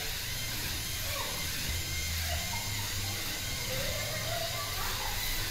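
Faint whirring of a small Lego robot's electric motors, wavering in pitch as it drives and turns, over a steady hiss and low hum.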